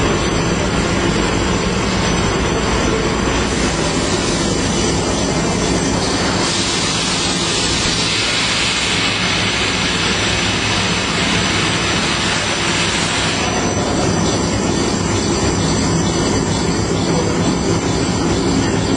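Toilet roll and kitchen towel converting line running: a loud, steady machinery noise. A brighter hiss joins about six seconds in and drops out about seven seconds later.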